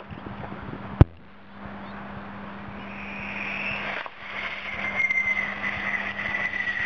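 Homemade PVC-pipe rocket motor with a steel-washer nozzle burning on a skateboard: a rushing hiss that grows louder partway through, carrying a high whistle that falls slightly in pitch. A sharp click sounds about a second in.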